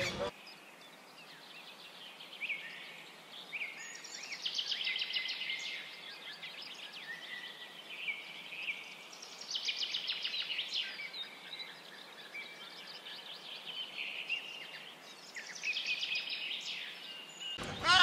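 Small birds chirping and trilling, many overlapping calls with spells of fast trilling every few seconds: a forest birdsong ambience.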